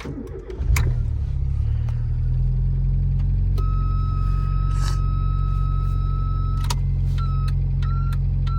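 Mk3 Ford Fiesta engine starting about a second in and settling to a steady idle. A few seconds later a high-pitched electrical buzz comes in, steady for about three seconds, then pulsing on and off about one and a half times a second. This is the fault buzz that comes on with the lights, which the owner suspects is a bad earth or bad connection.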